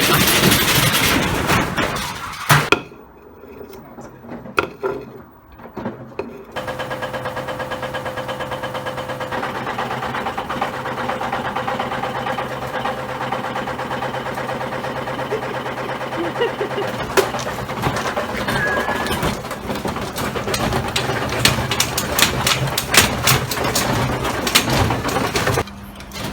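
Washing machine running with hard objects loose in the drum: loud clattering at first, then a steady motor hum with fast, even ticking, and later many irregular knocks and bangs.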